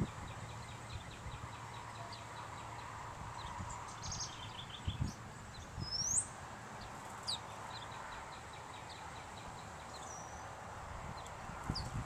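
Outdoor ambience with wind rumbling on the microphone and scattered small bird chirps and ticks, including a rising whistled call about six seconds in.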